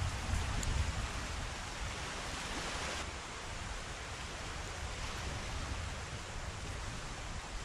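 Steady wind noise over an open tidal flat, with a low rumble of wind buffeting the microphone that is stronger in the first second or so, and a faint wash of distant surf underneath.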